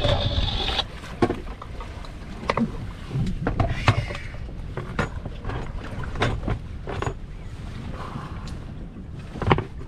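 Small fishing boat drifting on a rough sea: a steady low rumble of wind and water against the hull, with scattered knocks and clicks of gear on deck, the sharpest about a second in, near four seconds and near the end.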